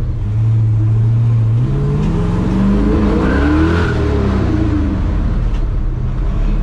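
Small-block Chevy V8 in a 1966 Chevy C10 pickup, running on a newly fitted Edelbrock AVS2 650 cfm carburetor, heard from inside the cab while driving. The engine holds a steady note, then about two seconds in it speeds up under acceleration, its pitch climbing for about two seconds before dropping back to a steady cruise.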